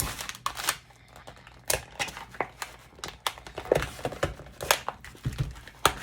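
Packaging being cut and torn open with a multi-tool knife blade: crinkling and tearing with irregular sharp crackles.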